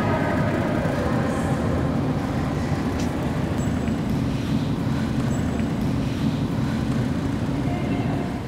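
A steady, deep rumble with a faint ringing tone that fades away in the first second, easing off slightly near the end.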